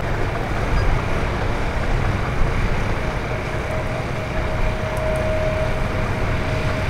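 A boat engine running with a steady low rumble. A faint steady whine joins about three seconds in and stops near the end.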